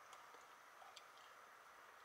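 Near silence: faint room tone inside a car, with a few soft ticks.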